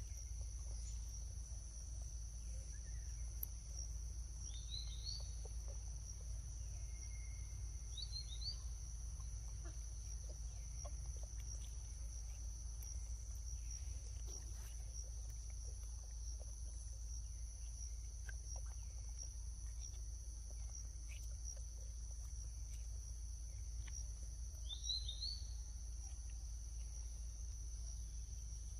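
Steady high-pitched drone of crickets or cicadas, over a low steady rumble. Short rising bird chirps come three times: about 5 s, 8 s and 25 s in.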